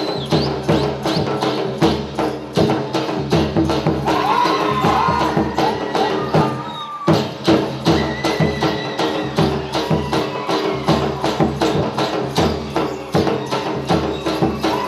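Gujarati folk dance music: a fast, even percussion beat of about four strokes a second under a sliding melody line. The beat drops out briefly about seven seconds in.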